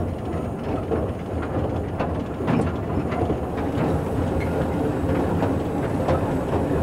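Narrow-gauge steam locomotive and its open carriage running along the line, heard from right behind the engine: a steady rumble with scattered clicks and knocks.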